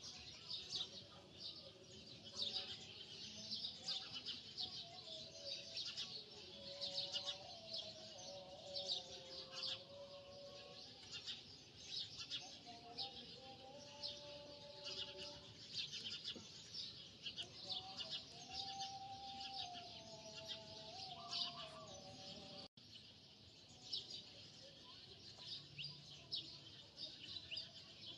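Small birds chirping continuously, many short high calls overlapping, with a faint wavering tone underneath.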